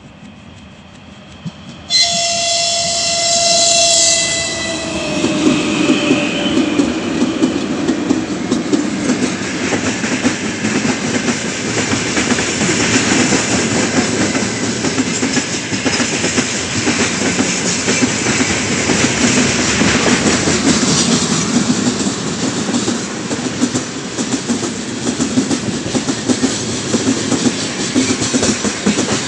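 3ES5K "Ermak" electric locomotive sounding its horn in greeting for about three seconds, the tone dropping in pitch as it passes. Then a long freight train of gondola wagons rolls by, a steady rumble with the clickety-clack of wheels over rail joints.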